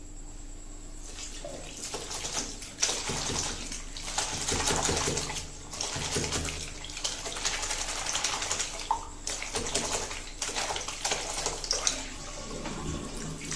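Tap water running into a bathroom sink while a shirt is hand-washed under it, the water splashing unevenly as the wet cloth is rubbed and squeezed. It starts about a second in and eases off near the end as the shirt is lifted out.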